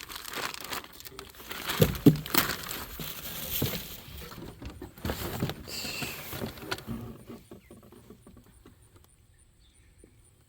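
Plastic parts packaging rustling and crinkling, with light knocks from parts being handled; the handling dies down after about seven seconds.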